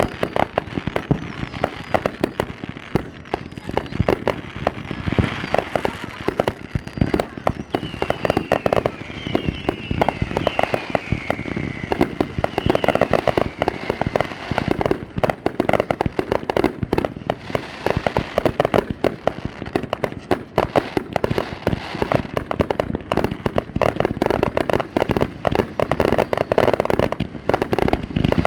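Fireworks display: a dense, continuous barrage of bangs and crackling bursts, with a falling whistle partway through.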